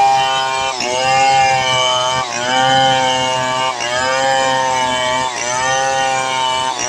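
Stihl 070 two-stroke chainsaw ripping lengthwise along a log under load. Its engine note dips briefly and recovers about every one and a half seconds.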